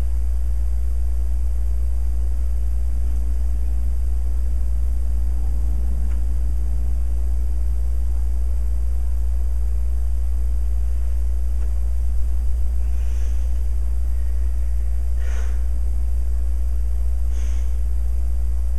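A loud, steady, deep hum, with three short breaths from a person in its second half.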